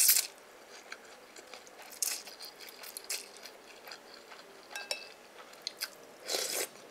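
Close-up eating sounds of a person chewing and biting into wonton noodles, in short irregular bursts, with a light clink of a utensil on a china bowl about five seconds in.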